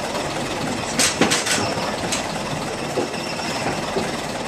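Sharp knocks and clanks from the Pegasus jet engine being guided by hand into its airframe: a quick cluster about a second in, then single knocks near two and three seconds in, over a steady background rumble.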